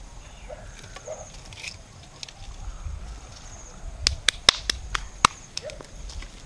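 Sharp cracks and snaps of burning or breaking sticks at a small wood cooking fire, about seven in quick succession a little after four seconds in, over a low outdoor background.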